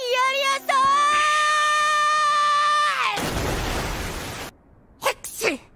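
A cartoon dragon's long, high voiced wail of about three seconds, with a jump in pitch early on. It gives way to a rushing whoosh, then a couple of brief sharp sounds near the end.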